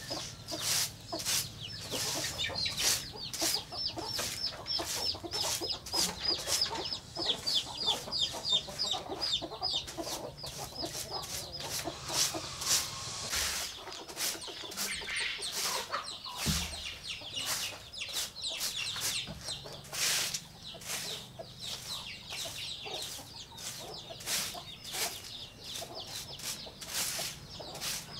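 A short grass hand broom sweeping a dirt floor in quick, repeated strokes, with chickens clucking. Rapid, high, falling chirps run through the first third.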